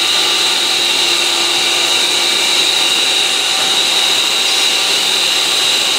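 Irrigation pump station's pump running steadily in fill mode, a constant mechanical rush with a steady high whine, pushing only a little water into the main line.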